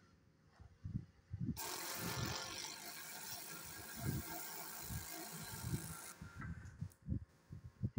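A high-pressure spray jet hissing high up on a ship's deck crane, starting suddenly about one and a half seconds in and cutting off about six seconds in. Low, gusty rumbles of wind on the microphone run underneath.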